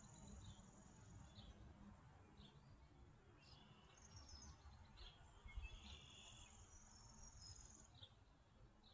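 Quiet outdoor ambience: scattered short, high bird chirps, and twice a high, buzzy insect-like trill lasting about two seconds, over a faint low rumble.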